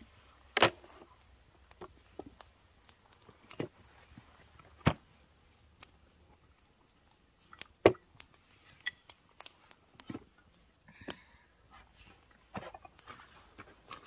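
Camping gear being unpacked and handled: irregular knocks, clicks and rustles, with two louder knocks, one just after the start and one a little past halfway.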